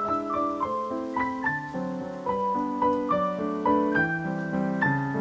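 Background piano music: a melody of single notes over sustained lower chords, with a new note every half second or so.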